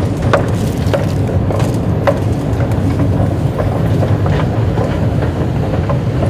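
Steady low rumble of an underground MRT station and its running escalator, with scattered footstep taps.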